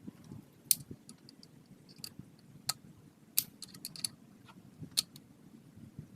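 Scattered sharp clicks and light taps of hand tools and parts being handled, with the loudest clicks about a second in, around the middle and about five seconds in.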